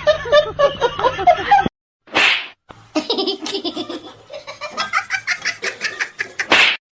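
A person laughing in rapid bursts. The laughter stops abruptly about a second and a half in, a short breathy burst follows, and then laughing comes again in quick pulses. A loud breathy burst sounds near the end.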